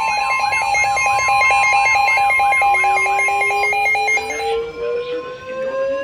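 Several NOAA weather alert radios sounding their alarms at once: a steady warning tone, beeps pulsing about four times a second, and repeating warbling sweeps layered together. The alarms cut off about four and a half seconds in, while a slowly rising tone carries on to near the end.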